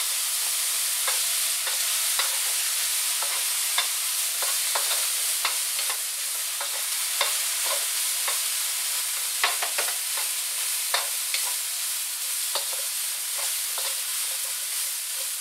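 Broccoli sizzling in a hot non-stick wok with a little water just added, giving a steady hiss. A wooden spoon stirs it, scraping and tapping irregularly against the pan.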